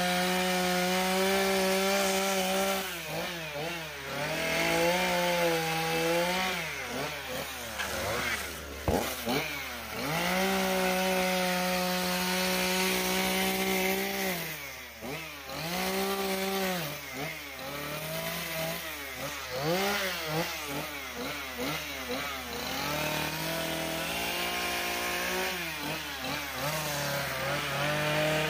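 Two-stroke chainsaw at high revs, cutting into a wood carving. The engine pitch keeps dropping and climbing back as the throttle is eased and reapplied between cuts.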